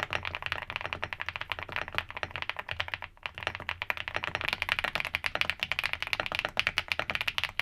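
Fast typing on an Evoworks Evo75 aluminium mechanical keyboard: a dense run of keystrokes, many a second, with a brief pause about three seconds in.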